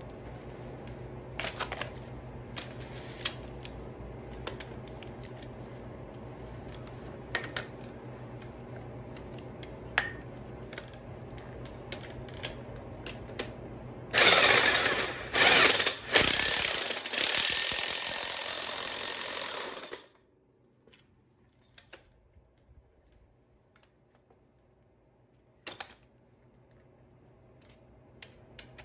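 Cordless impact wrench hammering on the threaded rod of a coil-spring compressor fitted to a car's front strut. It runs loudly in several bursts over about six seconds, after a stretch of scattered metal tool clicks.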